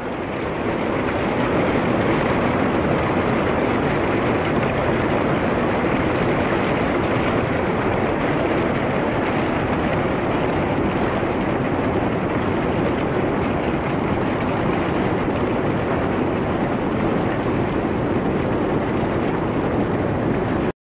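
Steady rushing noise with no distinct events, like wind or running water. It fades in at the start and cuts off abruptly at the end.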